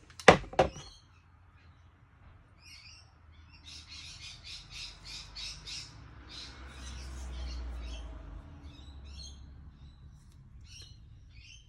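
Birds calling: a loud squawk just after the start, then runs of quick, high chirps at about four a second, starting and stopping.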